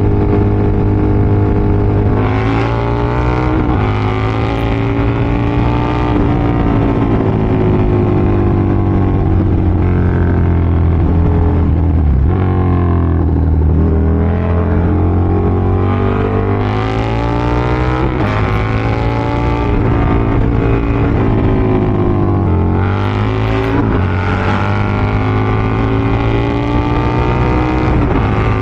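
Big-displacement sport motorcycle engine, a KTM 1290 Super Duke R V-twin, accelerating hard at expressway speed: its pitch climbs repeatedly and drops sharply at each gear change. The bike is being run hard after a long time unused.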